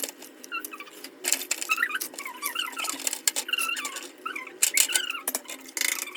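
Repeated short squeaks of rubbing on wet plastic fridge parts as they are washed, mixed with clicks and knocks of the plastic being handled.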